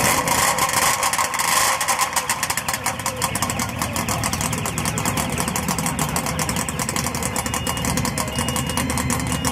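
Custom 500cc V4 two-stroke motorcycle engine, a Suzuki RG500 bottom end with Ariel Arrow barrels, running at a fast, rapid-fire idle through its expansion-chamber exhausts, a little brighter and louder in the first couple of seconds.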